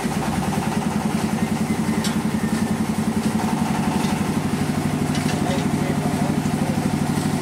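Motor-driven mincing machine grinding fried peanuts and dried red chillies, running steadily with a fast, even pulsing drone from its drive.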